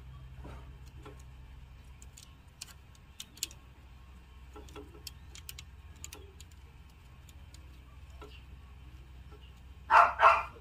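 Faint scattered clicks and taps from mating Siamese cats shifting against a wire cage and its plastic slatted floor, over a low steady hum. About ten seconds in come two loud, short bursts of noise.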